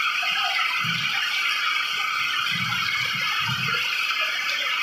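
Heavy rain pouring down steadily: a dense, even hiss of drops on sandy ground, paving and leaves.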